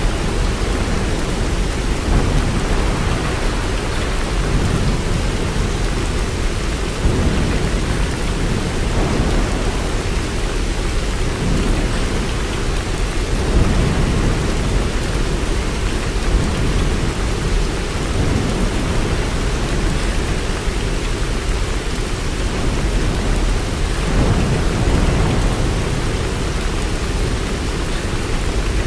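Steady heavy rain, with a low rumbling underneath that swells and fades every few seconds.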